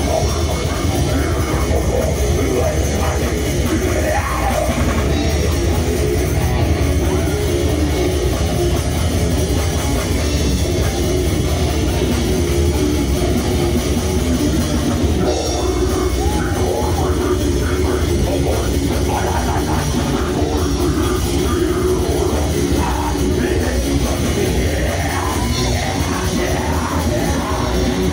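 Heavy metal band playing live at a steady loud level: distorted electric guitar, bass guitar and drum kit, with a vocalist singing into a microphone.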